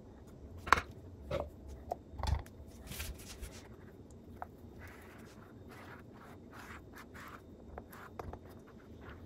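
A plastic squeegee scraping and spreading freshly poured epoxy across a wooden end-grain board, in short rasping strokes. A few sharp knocks come in the first couple of seconds.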